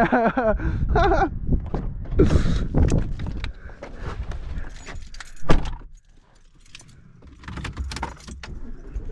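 Keys jangling and clattering, with one loud sharp thump about five and a half seconds in, then a short lull and more light clinking.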